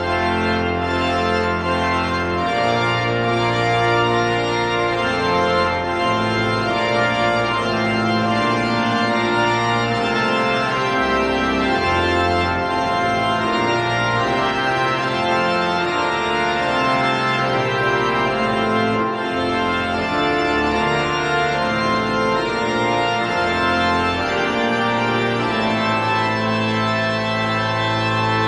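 Organ music playing slow, held chords over a changing bass line.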